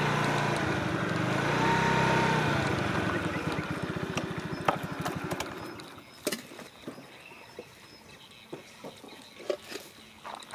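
A motor vehicle engine runs and fades away over the first five or six seconds, its low beat slowing into a pulsing rhythm as it goes. After that come scattered clicks and crinkles of a plastic food bag being handled.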